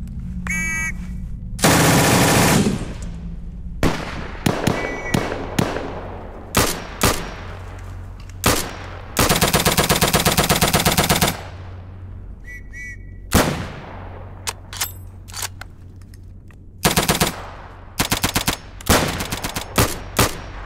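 Automatic gunfire in short bursts and single shots, with one long steady burst near the middle from an MP40 submachine gun, and short bursts near the end from an StG 44 assault rifle. A short shrill whistle blast sounds just before the shooting starts.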